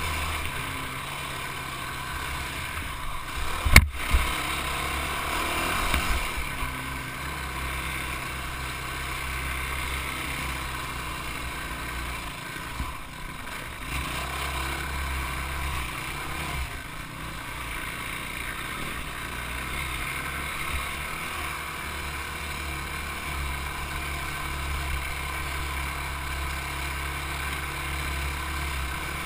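Engine of a sport ATV (quad) running under way on a rough dirt trail, heard from a camera mounted on the machine, with steady rumble. A sharp knock about four seconds in and a few smaller knocks around six seconds.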